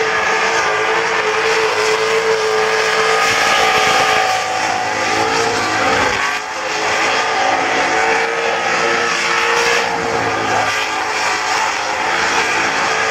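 Burnout car's engine held at high revs while its rear tyres spin on the pad, a steady loud pitch that dips briefly about six seconds in before climbing back up.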